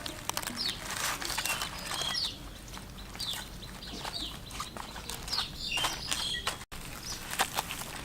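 Small birds chirping in short, repeated falling notes, over scattered clicks and scraping from hands working at food preparation.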